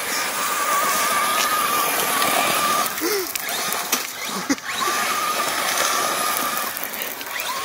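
Radio-controlled car spinning its wheels on loose gravel: a steady motor whine over the hiss of spraying gravel, in two runs of a couple of seconds each with a short break about three seconds in.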